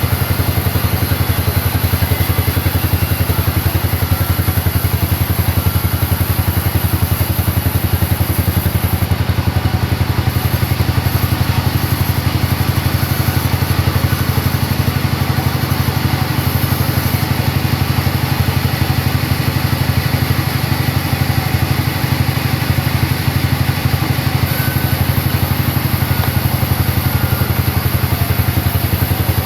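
A sawmill's engine running steadily with a fast, even low beat.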